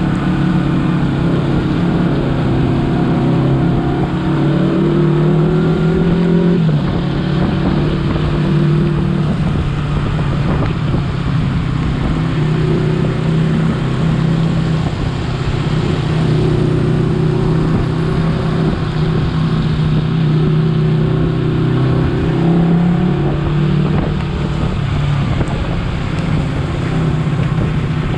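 Honda CBR250RR motorcycle engine running at a steady cruise while being ridden, with a steady hiss underneath; its pitch drops about six seconds in and otherwise holds fairly even.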